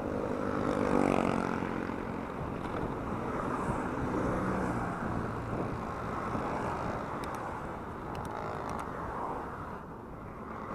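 Highway traffic going by a moving bicycle, with wind rushing on the microphone; a motor vehicle's engine passes close about a second in, its pitch bending as it goes by. A few light clicks come near the end.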